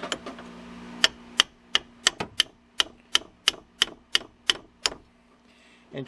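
A hammer lightly tapping the end of a 20 mm open-end steel wrench, about a dozen sharp metallic taps at roughly three a second, starting about a second in and stopping near the end. The taps are to break loose a stuck oil cooler line fitting at the radiator.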